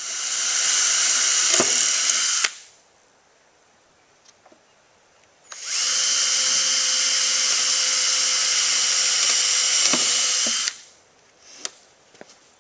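Power drill driving screws into wooden boards: two steady runs, the first about two and a half seconds, the second about five seconds, each with a quick spin-up and a sudden stop. A few light clicks follow near the end.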